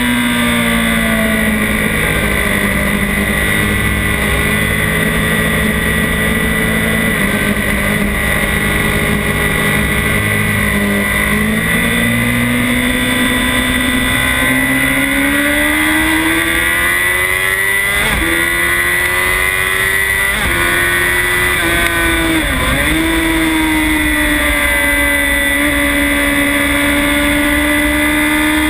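Honda CBR1000RR's inline-four engine heard onboard at track speed, its pitch climbing steadily under acceleration through the middle, then dipping sharply and recovering several times with throttle and gear changes, over a steady rush of wind noise.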